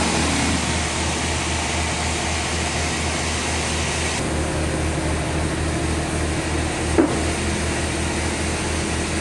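Sawmill machinery running steadily with a low, throbbing engine hum and a constant hiss. There is a single sharp knock about seven seconds in.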